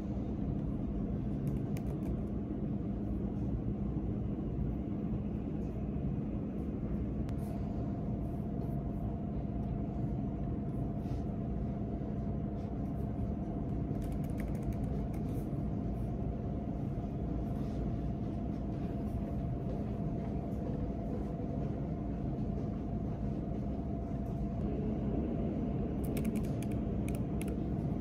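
Steady low rumble with a constant hum, over which laptop keyboard keys click now and then, most thickly near the end.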